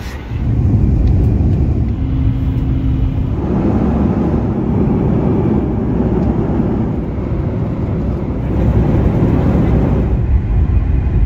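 Jet airliner cabin noise from inside a Boeing 737 MAX 9: a steady low rush of engine and airflow sound, which grows louder about half a second in.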